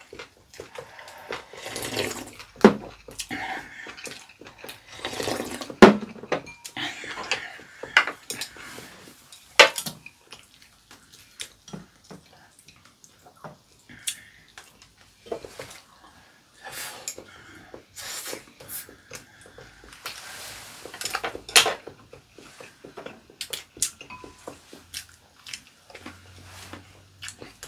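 Close-up table eating sounds: soup slurped from bowls in short noisy sips, with chopsticks and spoons clinking against ceramic bowls and plates, a few of the clinks sharp and loud.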